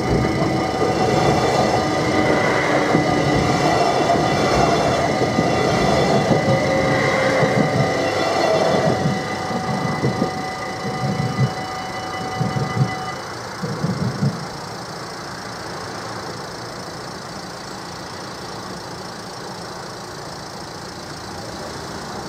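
Express train running through a level crossing: loud rail and wheel noise for the first nine seconds or so, then a few wheel clacks that die away by about fourteen seconds in, over the crossing's steady warning tones, which stop about thirteen seconds in. After that, queued cars idle quietly.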